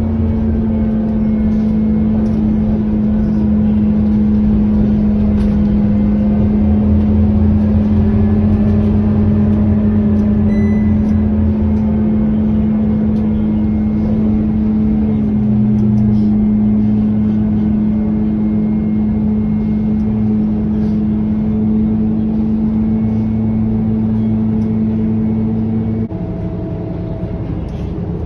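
Cabin sound of a Scania K230UB bus's five-cylinder diesel engine and driveline under way, a steady drone with engine tones rising and falling as the bus gathers and sheds speed. About two seconds before the end the steady drone cuts out and the overall sound drops a little.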